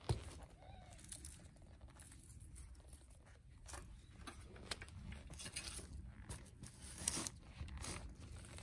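Digging with a steel garden fork in soil around a dahlia clump: scattered crunches and rustles of earth, roots and dry leaves. A sharp knock comes right at the start and a louder crunch about seven seconds in.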